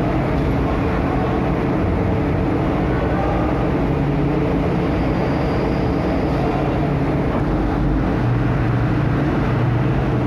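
Big truck diesel engines running in a loud, continuous din, the low hum shifting in pitch a few times.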